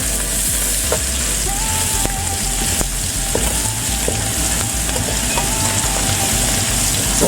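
Food frying in hot oil: a steady sizzle.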